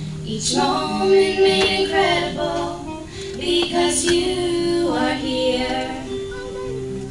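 Live female singing with acoustic guitar accompaniment. The voice comes in about half a second in and stops near six seconds, leaving the guitar chords ringing on.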